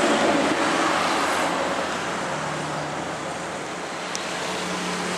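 Road traffic: a passing vehicle's noise, loudest at the start and slowly fading, over a steady low engine hum.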